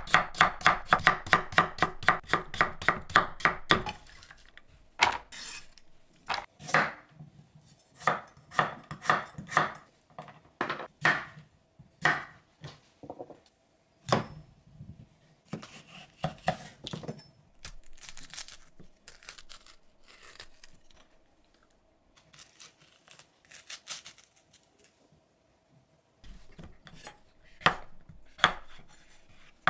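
Chef's knife chopping on a wooden cutting board: a fast, even run of about five strokes a second as carrot is cut into thin matchsticks, then slower, scattered cuts through cucumber, with a pause of a few seconds before a few last cuts near the end.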